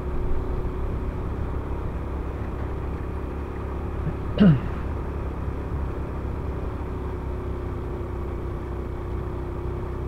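Honda Supra X125 FI motorcycle's single-cylinder engine running steadily at cruising speed under a constant low rumble. About four and a half seconds in, a short, sharp sound sweeps quickly down in pitch.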